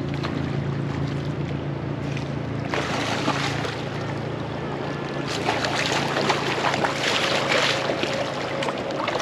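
A hooked salmon thrashing and splashing in shallow water at the river's edge, louder in the second half, over the rush of the river. A steady low motor hum runs underneath and fades out near the end.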